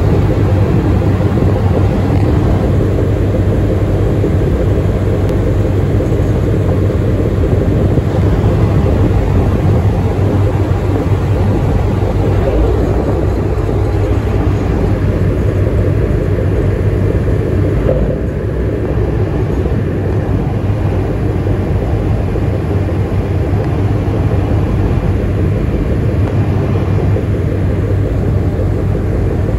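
The cruise ship Marella Explorer's engines running as it manoeuvres close alongside the quay: a loud, steady low rumble with a hum, easing slightly a little past halfway.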